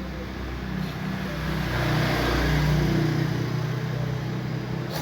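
A motor vehicle engine humming, growing louder to a peak about two to three seconds in and then easing off.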